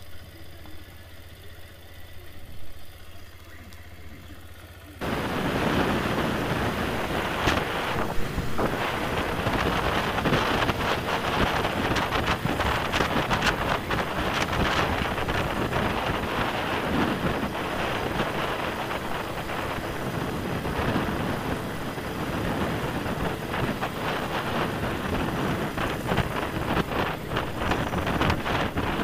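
Motorcycle engine running at low speed with a quiet, steady hum; about five seconds in it gives way to loud, steady wind rush buffeting the camera microphone as the bike rides at speed, the engine underneath.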